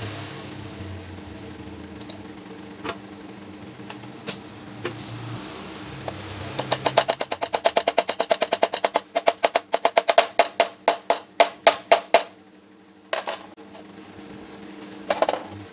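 Toku air impact wrench hammering: a fast run of sharp metallic blows for about six seconds, spacing out toward the end, over a steady low hum. Two short bursts follow.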